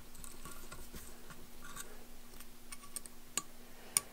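Faint small metallic clicks and ticks of a hex key turning a cap screw into a cast-iron super spacer, with two sharper clicks near the end. A steady low hum runs underneath.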